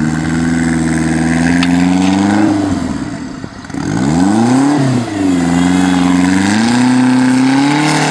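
Off-road buggy's engine revving hard under load as it climbs over a dirt mound. The revs are held high, drop away about three seconds in, blip up and down once, then are held high again before easing off near the end.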